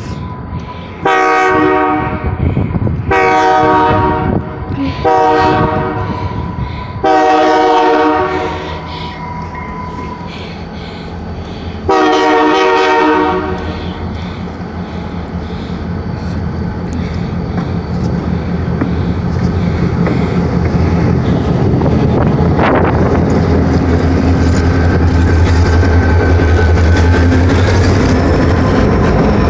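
Finger Lakes Railway diesel-electric freight locomotives at a grade crossing. The chime horn sounds four long blasts in quick succession, then one more about twelve seconds in. After that the diesel engines run as a steady low drone that grows louder as the locomotives pass close by near the end.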